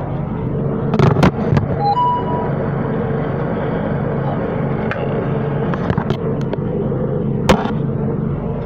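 A steady hum from an unseen machine, with a few knocks and rubbing from the phone being handled and carried, and a brief beep-like tone about two seconds in.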